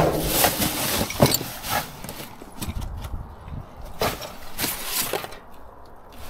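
Rubbish being rummaged by hand in a metal skip: plastic bags rustling and polystyrene blocks and cardboard scraping and knocking. The handling is busiest in the first two seconds, then comes as a few separate knocks and scrapes about four and five seconds in.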